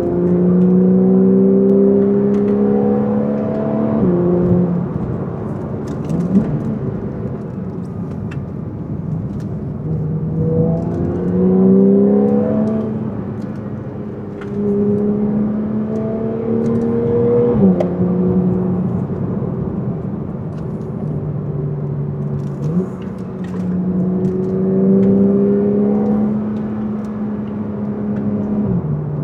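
Porsche 911 flat-six engine pulling hard through the gears. Its pitch climbs under throttle, then drops sharply at each upshift, three times. In between come short throttle blips on the downshifts and moments of lifting off.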